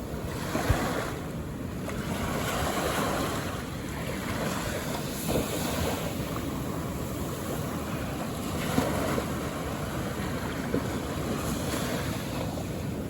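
Calm ocean waves washing onto the shore: a continuous surf hiss that swells and eases every few seconds.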